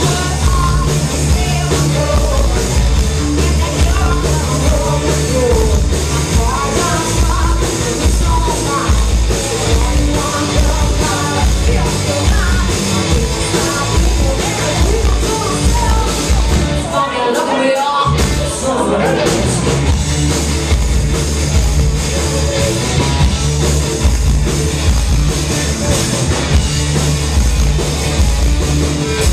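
Live punk rock band playing loud: electric guitar, bass and drums driving a steady beat, with a woman singing. About seventeen seconds in the bass and drums drop out for a moment, then the full band comes back in.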